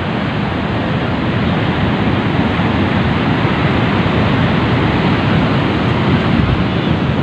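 Steady rush of breaking surf mixed with wind buffeting the microphone.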